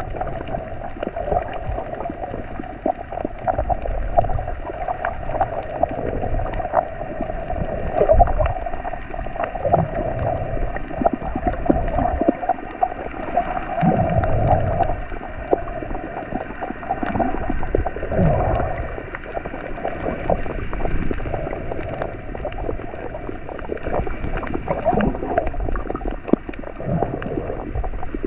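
Underwater sound picked up by a GoPro: a steady muffled rush of water with gurgling and scattered faint clicks, swelling into low surges every few seconds.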